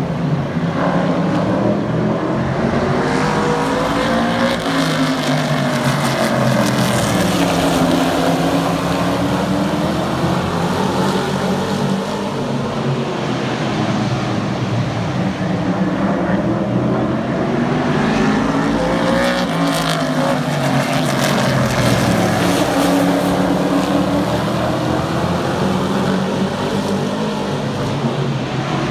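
A field of short-track Super Truck race vehicles running flat out around the oval, a blend of several engines. Their pitch swells and sinks in long waves as the pack comes past, then goes away down the straights and through the turns, roughly every fifteen seconds.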